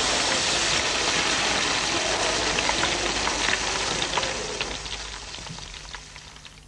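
Steaks frying in hot fat in a pan: a dense sizzling hiss dotted with crackles and pops, fading away over the last couple of seconds.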